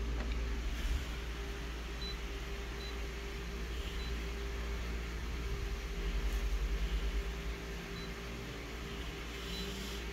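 Office colour copier humming steadily with its fan running, with several short, faint high beeps from its touchscreen as settings are pressed. A brief low throbbing comes about six seconds in.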